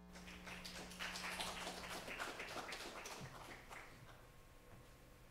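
A small audience clapping, a dense patter of hand claps that builds in the first second or two and dies away about four seconds in.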